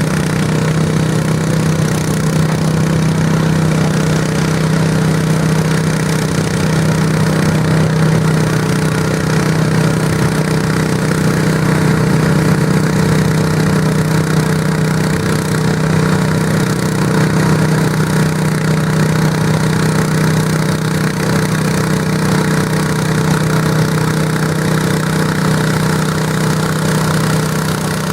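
Garden tractor engine running loudly at a steady pitch, with no revving up or down.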